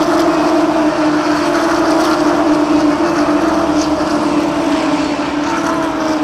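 A pack of NASCAR Corona Series V8 stock cars racing at full throttle, their engines blending into one loud, steady drone whose pitch sinks slowly.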